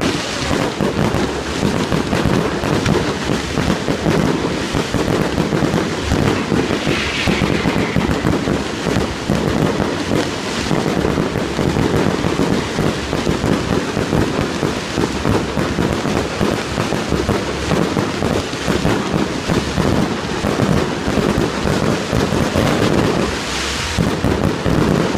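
Fireworks display in a dense, unbroken barrage: rapid overlapping bangs and crackling, with no pause.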